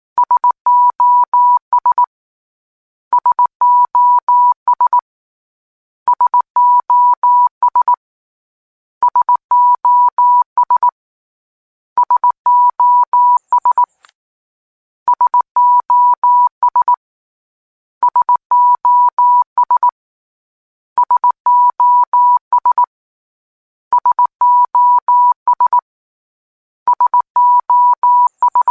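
Morse code beeps: a single steady tone keyed on and off in short and long pulses. The same group of dots and dashes, about two seconds long, repeats every three seconds, with a pause between groups.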